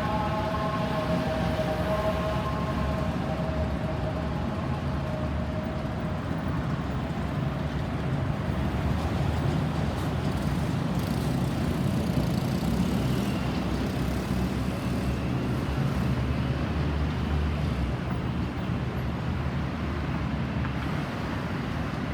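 An ambulance siren fades away over the first few seconds, leaving steady road traffic noise with a low rumble.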